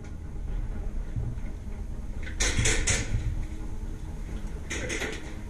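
Airsoft replica gunfire: three quick sharp shots a little before the middle, then another quick cluster of shots near the end, over the rustle of gear and movement.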